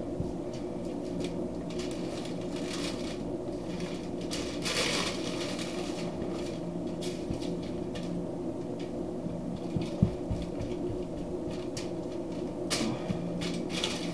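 Hands patting and pressing a dry rub into a slab of pork spare ribs on aluminium foil, with soft crinkles and rustles of the foil and one sharp thump about ten seconds in, over a steady low hum.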